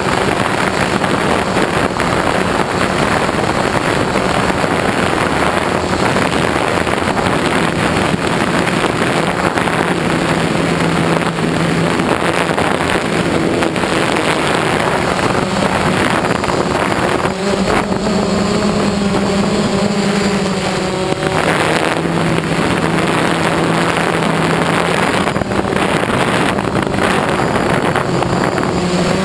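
Phantom quadcopter's electric motors and propellers droning steadily, heard from on board with wind rushing over the microphone. The pitch shifts up and down as the motors change speed, rising most for a few seconds past the middle.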